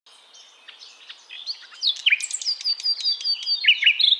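Nestlings in a cup nest giving rapid, high-pitched begging chirps, faint at first and much louder from about two seconds in.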